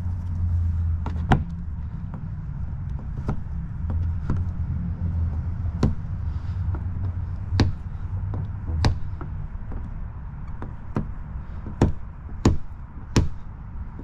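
A plastic squeegee clicking and tapping against a car's door handle and handle cup as paint protection film is worked out to the cup's corners, in about a dozen short, irregular sharp taps that come closer together near the end. Under them runs a steady low hum that fades out about two-thirds of the way through.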